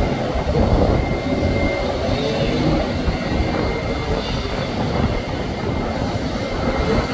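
Boeing 787-9 airliner's jet engines on the landing rollout: a steady low rumble with a faint high whine.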